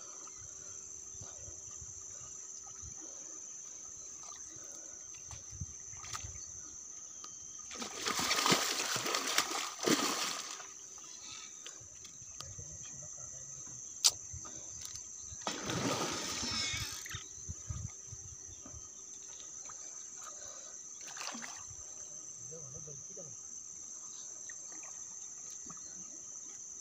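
Two bouts of splashing, about eight and sixteen seconds in, from a hooked mahseer thrashing at the surface as it is hauled in on a hand line. A steady high insect chirring runs underneath.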